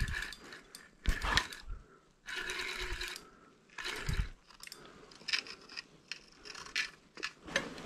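Handling noise in an ice-fishing shack: rustling, scraping and a dull knock as an angler moves about and works his gear, then a run of small clicks in the last few seconds.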